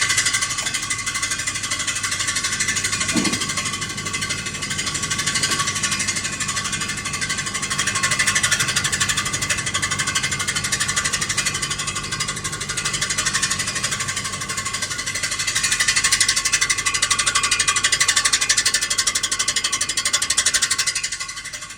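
2006 Ford F-150 making a fast, continuous metallic rattling scrape with the transmission in gear. The mechanic traces it to the flex plate, with the torque converter bolts rubbing against metal. It stops about a second before the end.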